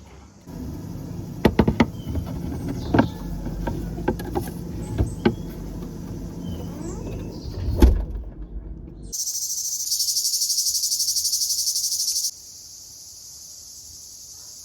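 Low rumbling with several sharp knocks, then a loud, high-pitched insect chorus in a fast pulsing trill, which drops suddenly to a fainter buzz near the end.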